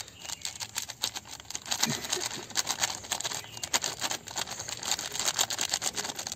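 Plastic spice packet of coriander powder crinkling and crackling as it is squeezed and shaken to pour the powder into a steel bowl, a rapid, irregular run of small crackles.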